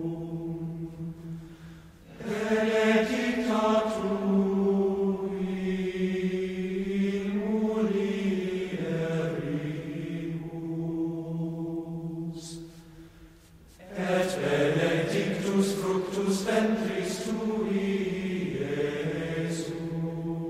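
A slow chanted hymn sung in long held notes. It breaks off briefly about two seconds in and again around thirteen seconds in.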